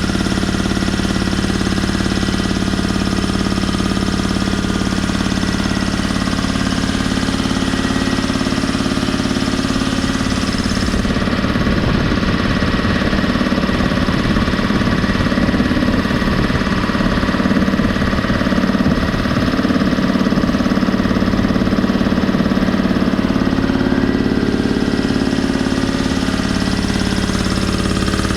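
Campbell Hausfeld 80-gallon electric air compressor running steadily, its pump and motor making a continuous hum.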